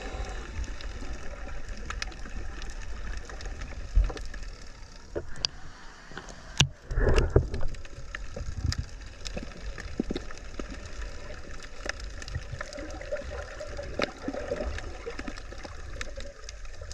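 Seawater sloshing and gurgling around the microphone, with a constant low rumble and many scattered sharp clicks; a louder knock about four seconds in and a louder splashing patch around seven seconds.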